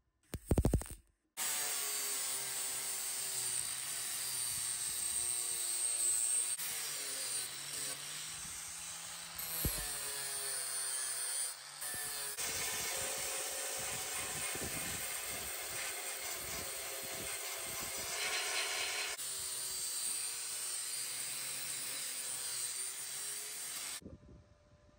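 Angle grinder grinding down fresh weld seams on steel tailgate repair patches, running continuously with its pitch shifting under load. It dips briefly about halfway and stops about a second before the end.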